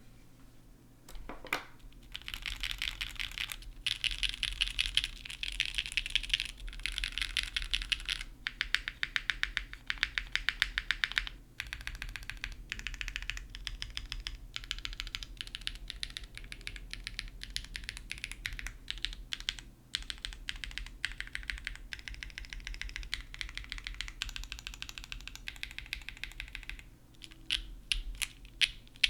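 Mechanical keyboard with stock, factory-lubed Gateron CM long-pole switches on an aluminum leafspring plate with GMK keycaps, keys spammed in fast runs of clacky strokes lasting a few seconds each with short pauses between.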